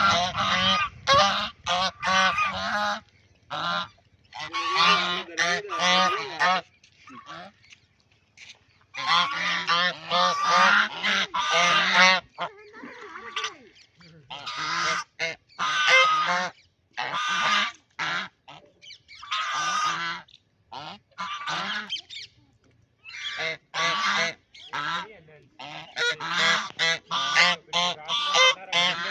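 Domestic waterfowl calling loudly: harsh honking quacks in rapid runs of several calls, broken by short pauses a few times.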